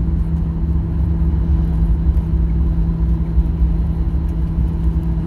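Cabin noise inside a Boeing 737-800 rolling on the runway after landing: a steady low rumble of its CFM56 engines and wheels, with a constant hum over it.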